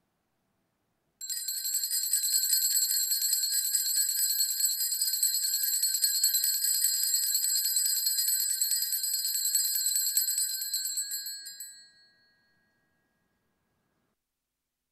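Altar bells shaken in a rapid, continuous jingle, starting about a second in, ringing for about ten seconds and then dying away. Rung during the benediction, the blessing with the monstrance.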